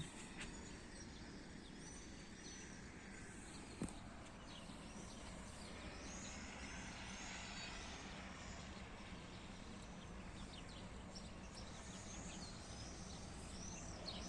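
Swallows twittering: many short, high chirps in quick runs, busier in the second half, over a steady outdoor background hiss. A single sharp click about four seconds in.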